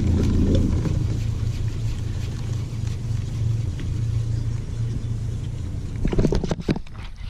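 Steady low rumble, with a handful of sharp clicks and knocks about six seconds in.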